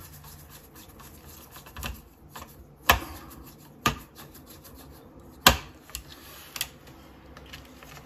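Wires being handled and fitted into the screw terminal block of an alarm keypad's circuit board: faint rubbing and scraping with several sharp small clicks at irregular spacing, the loudest about five and a half seconds in.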